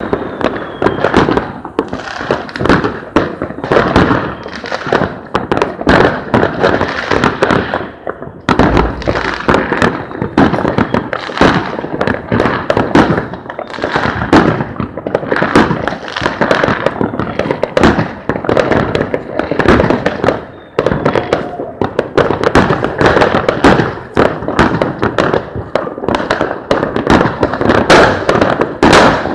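Fireworks going off in a dense, unbroken barrage: many overlapping bangs every second with no pause.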